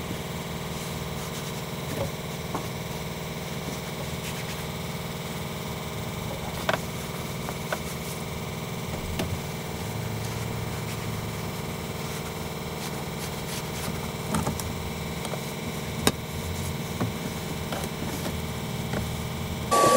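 A steady low mechanical hum, engine-like, with a handful of short light taps and knocks from hands and a towel working over a truck cab floor.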